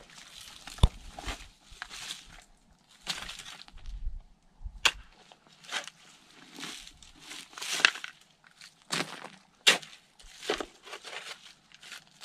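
Shovel digging into hard, rocky clay soil: a series of crunching, scraping strokes, several of them sharp strikes, as clods are pried loose.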